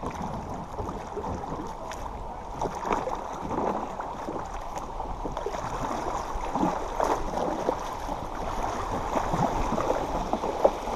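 Creek water rushing and gurgling around a canoe in a shallow riffle, with irregular small splashes, growing a little louder toward the end.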